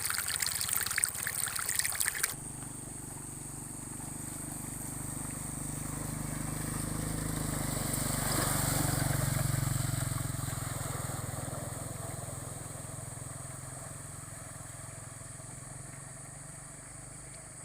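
Rushing floodwater for about two seconds, then, after a sudden cut, a motor vehicle's engine running steadily, growing louder to a peak near the middle and fading away as it passes.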